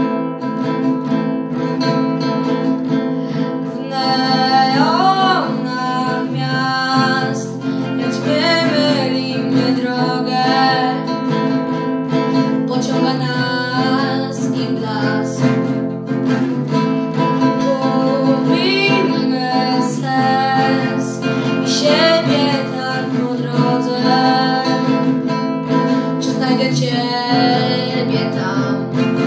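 A boy strumming chords on a small nylon-string classical guitar, with his voice coming in singing a song in Polish about four seconds in.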